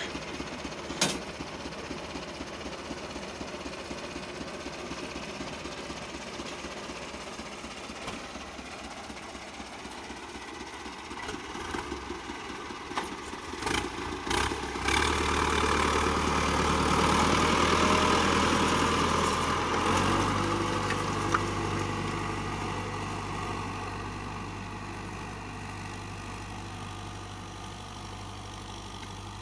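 Iseki T7020A tractor's diesel engine running steadily, growing louder from about halfway through as the tractor works nearer with a disc harrow, then slowly fading; a single sharp click about a second in.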